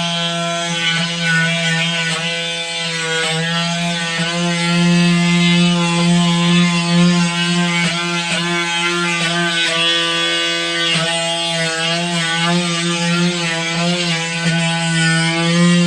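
Craftsman oscillating multi-tool with an 80-grit sanding pad running steadily while sanding a hardwood floor into a corner: a continuous buzzing hum whose pitch wavers slightly as the pad is pressed and moved.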